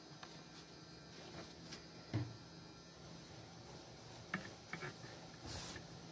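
Cotton fabric being handled and shifted: a few soft knocks and clicks, then a short rustle of cloth near the end, over a steady low electrical hum.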